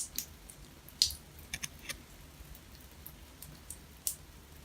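Light clicks and short scrapes of a knife tip prying a worn rubber washer out of the end of a bathtub faucet cartridge, several small sharp ticks spread irregularly through the few seconds.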